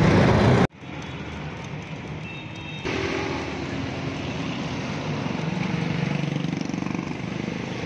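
Street traffic ambience: vehicles and motorbikes running and passing on a city road, a steady noise that rises a little about three seconds in. A louder sound cuts off abruptly under a second in.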